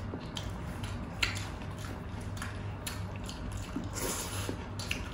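Close-miked eating sounds: wet chewing and lip smacks of mouthfuls of rice and fried pork eaten by hand, with a few short sharp clicks scattered through, over a faint low hum.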